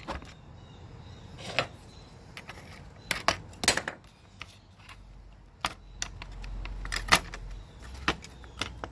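Scattered clicks and light clatter of hard plastic and metal telephone parts being handled and set down as a desk phone is taken apart for scrap, with a quick cluster of knocks a few seconds in.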